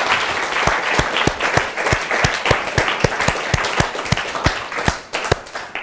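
Audience applauding, with one person's claps close to the microphone standing out at a steady three or so a second. The applause thins and dies away near the end.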